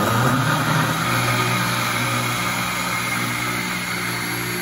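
Countertop blender running steadily at one speed, blending boiled potatoes with egg, warm milk, oil, sugar, salt and yeast into a liquid batter.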